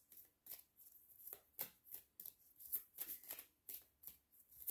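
Deck of tarot cards being shuffled overhand by hand: soft, short card flicks and slaps, about three a second and unevenly spaced.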